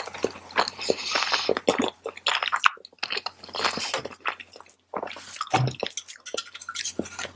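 A person chewing a mouthful of tofu fried rice close to the microphone: a dense run of quick wet smacks and clicks, breaking off briefly twice.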